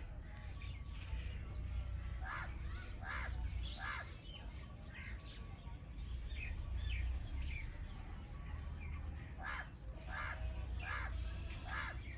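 Birds calling: two runs of short, harsh calls, one about two seconds in and one near the end, among lighter chirps, over a steady low rumble.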